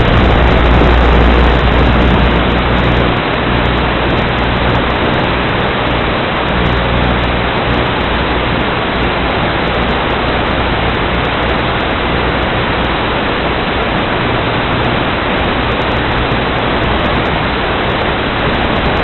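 Steady rushing noise with a low hum underneath, the wind and motor noise of an FPV drone in flight as picked up by its onboard recording; slightly louder for the first few seconds, then even.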